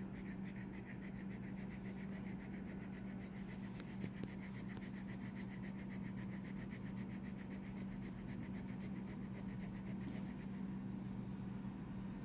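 Shetland sheepdog panting in a quick, even rhythm that stops near the end as it closes its mouth, over a steady low hum.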